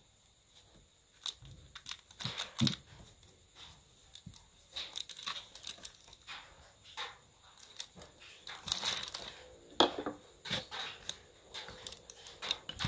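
Plastic wrapping crinkling, with scattered small clicks and knocks as lighters are handled and set down. The loudest knock comes near the end.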